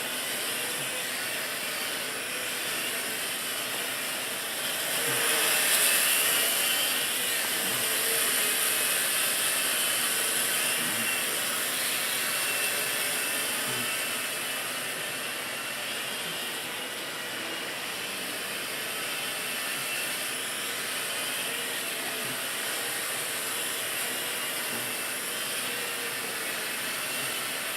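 WLToys V949 mini quadcopter's small electric motors and propellers buzzing steadily in flight, with a whine that swells louder about five seconds in and eases off again after a few seconds.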